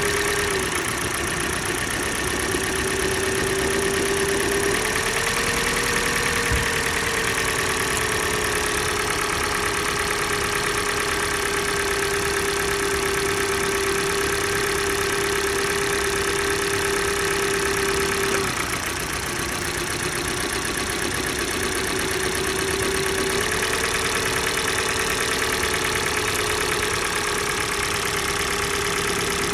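Kia Sportage G4NA 2.0-litre four-cylinder engine idling cold with a knock, while ignition coils are unplugged one at a time to find the knocking cylinder. Its steady running tone shifts about five seconds in, drops away around eighteen seconds, and comes back around twenty-three seconds.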